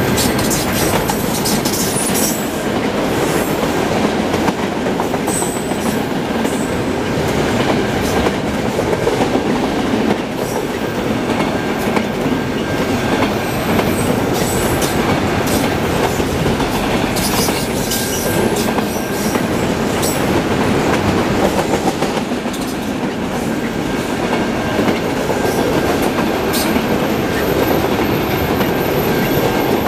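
Freight train of enclosed auto rack cars rolling past close by: a steady rumble of steel wheels on rail, scattered with clicks and knocks from the wheels and couplers. A thin, high wheel squeal comes in near the end.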